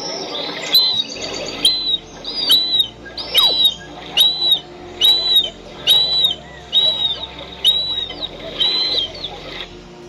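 Marsh harrier calling: a string of short, high, arched whistled notes, about one a second, stopping shortly before the end. Soft music runs faintly underneath.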